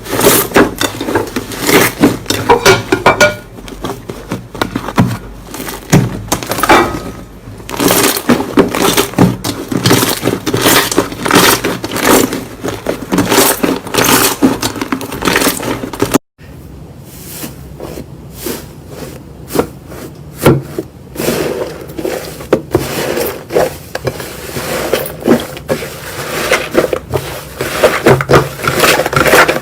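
Slime squeezed and pressed by hand: a dense run of sticky clicks, pops and crackles, with a brief gap just past halfway.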